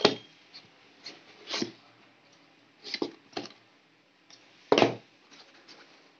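Cardboard hard-drive box being handled and turned over against another box: about five short scrapes and knocks, the loudest one at the very start and another just under five seconds in.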